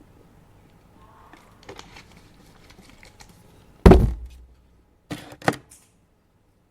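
Desk handling sounds: faint rustling, then one loud thunk about four seconds in, followed by two sharp clicks about a second later.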